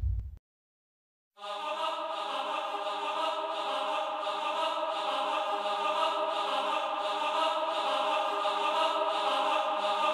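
Background music: after the tail of the logo sting cuts off and a second of silence, a held choir-like chant of sustained tones comes in about a second and a half in and carries on steadily.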